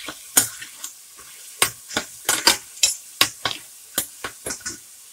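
Metal spoon stirring raw shrimp and mixed vegetables around a stainless steel frying pan: about fifteen quick scrapes and clinks against the pan, uneven in timing, over a faint steady sizzle.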